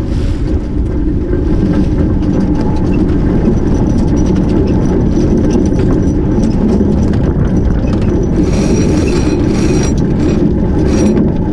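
Wind buffeting the microphone over water rushing along the hull of an Albin Vega sailboat heeled under sail, a loud steady rumbling hiss. From about eight seconds in, clicks and rustling join it as someone moves close beside the camera.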